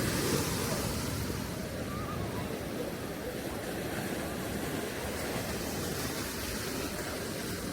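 Ocean surf washing onto a sand beach, a steady rushing noise, with some wind rumble on the microphone.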